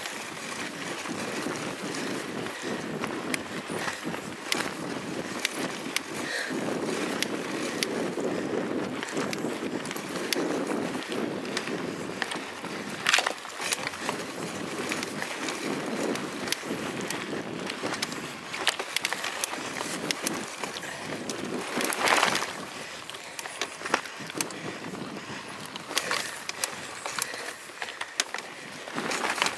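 Mountain bike rolling fast over a dirt woodland trail, picked up by a camera mounted on the bike: steady tyre rumble with frequent sharp knocks and rattles as the bike hits bumps and roots. There is a louder knock about 13 seconds in and a longer clatter about 22 seconds in.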